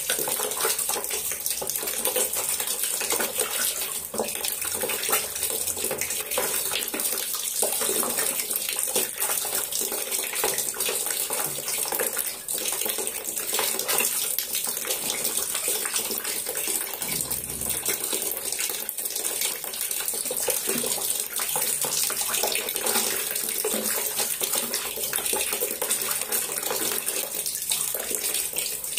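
A duck bathing in a plastic tub of water, splashing continuously as it dips and shakes in it.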